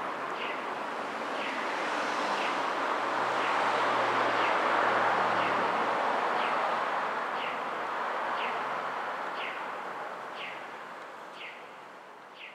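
A road vehicle passes, its noise swelling to a peak mid-way and fading away. Through it, a short high chirp repeats about once a second.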